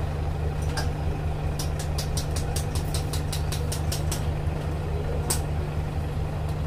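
Diesel engine of a stationary train idling with a steady low hum. A quick run of sharp clicks comes about a second and a half in.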